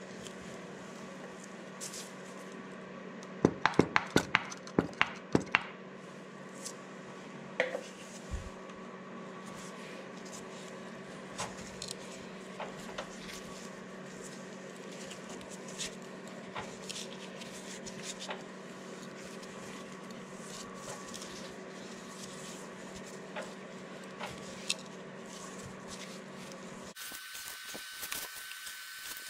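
Hand tap being worked back and forth to cut threads in a hole in a Wisconsin VH4D's crankshaft: light metallic clicks and knocks from the tap wrench, with a quick run of sharper clicks about four to six seconds in, over a steady low hum. Near the end the hum drops out and a thin high tone comes in.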